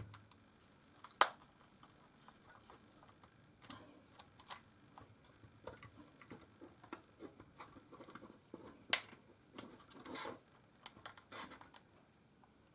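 Plastic casing of a Panasonic SDR-S50 camcorder being pried at to crack a cover off: scattered small clicks and ticks, with a sharper snap about a second in and another about nine seconds in.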